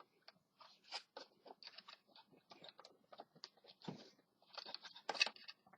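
Irregular faint clicks and scrapes of a rubber drive belt and the plastic base of a Hoover Elite Rewind vacuum cleaner being handled, as the belt is worked into the narrow groove on the motor shaft.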